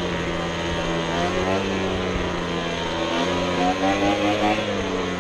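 Small gas engine of lawn equipment running steadily, its pitch rising and falling a couple of times as the throttle changes.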